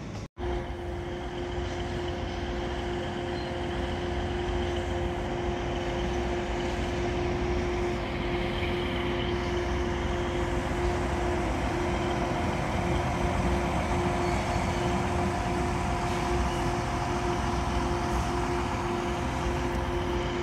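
Train of yellow engineering wagons rolling past: a steady low rumble with a constant high-pitched hum over it, slowly getting louder, after a brief dropout just after the start.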